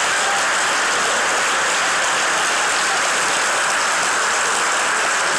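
A large audience applauding steadily, a dense, even sound of many hands clapping.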